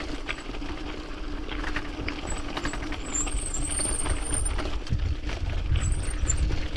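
Mountain bike rolling down a loose gravel track: tyres crunching over stones and the bike rattling, with wind rumbling on the microphone, stronger in the last couple of seconds. A few high squeaks come about midway.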